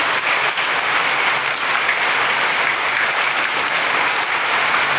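Hailstorm: hailstones and heavy rain pelting down in a dense, steady clatter on hard surfaces.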